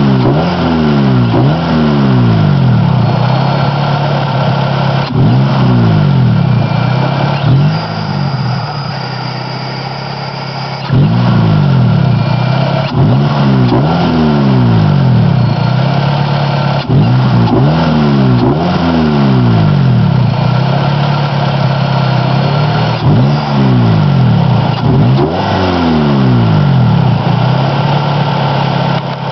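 Honda D16Z6 1.6-litre SOHC VTEC four-cylinder engine revved in repeated short blips, each rising and then falling back toward idle. It settles at a quieter idle for a few seconds about eight seconds in, then the revving resumes.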